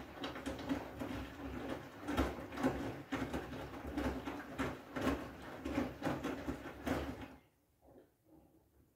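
Front-loading washing machine drum tumbling a wet load of clothes: water sloshing and irregular soft thuds as the laundry drops, going quiet about seven seconds in as the drum pauses.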